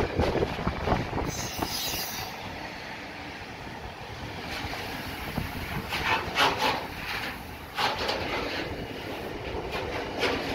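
Loaded container flat wagons of a freight train rolling past on the rails with a steady rumble. A brief high squeal comes about one and a half seconds in, and several sharp clacks from the wheels over rail joints come in the second half.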